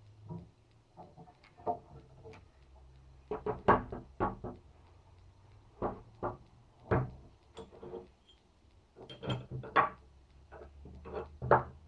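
Wrought-iron fireplace crane being handled on wooden boards: irregular knocks and clanks as its iron bars, pins and hook knock against each other and the planks, over a low steady hum.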